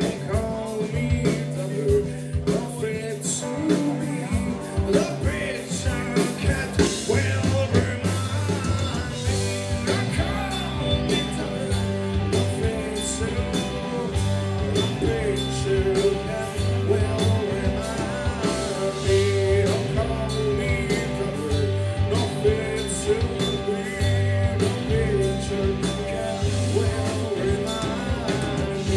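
Live rock band playing: a singer over electric bass, guitars and drums, with a steady bass line and beat.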